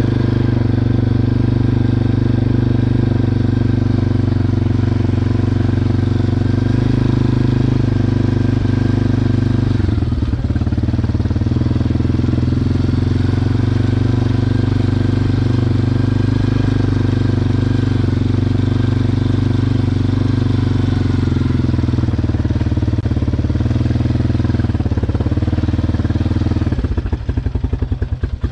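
ATV (quad) engine running at a steady speed, with an even, unchanging pitch. Near the end it drops back to a quieter, pulsing idle.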